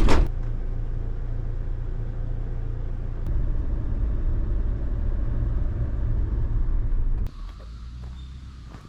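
Car running on the road: a steady low rumble that cuts off suddenly about seven seconds in.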